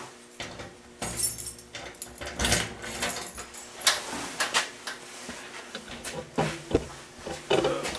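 Key turning in the lock of a Husky steel tool cabinet's side door, then the door opening, with keys jangling and a string of irregular metal clicks and rattles.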